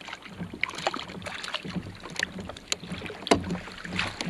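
A hooked brown trout splashing at the surface as it is scooped into a landing net beside a kayak: irregular sharp splashes and knocks, the loudest a little over three seconds in.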